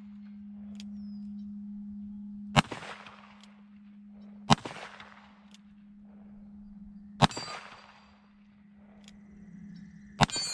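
Four shots from a Cimarron Pistoleer .45 Colt single-action revolver, unevenly spaced about two to three seconds apart, each followed by the clang and ring of a hit steel plate. A steady low hum runs under the first seven seconds or so.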